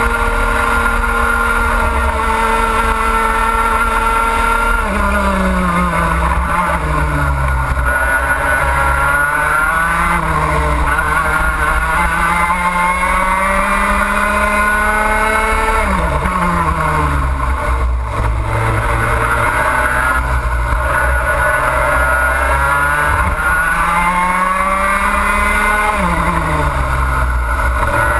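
Racing kart engine heard from onboard, held at a steady high pitch for the first few seconds, then dropping sharply as the kart brakes and climbing again out of each corner, several times over.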